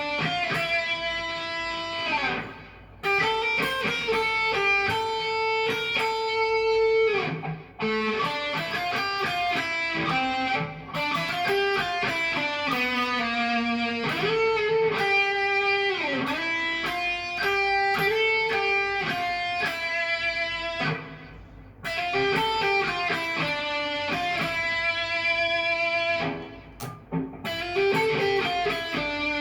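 Cort Viva guitar played in melodic phrases of sustained notes, some of them bent, with short breaks between phrases.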